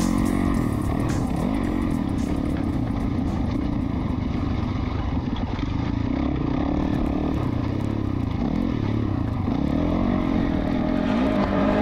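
Off-road dirt bike engine running hard under the rider, rising and falling in revs as the throttle is worked over rough desert trail, with revs climbing again near the end.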